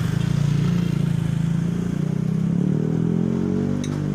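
A motor vehicle engine running close by, steady at first, its pitch rising slightly about halfway through.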